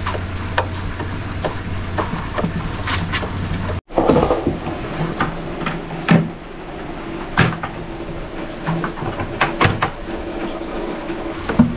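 Scattered clicks and knocks of a hand screwdriver driving screws and of wood being handled, as a drawer guide is screwed into a plywood cabinet. A low steady hum sits under the first few seconds, and the sound breaks off for an instant just before four seconds in.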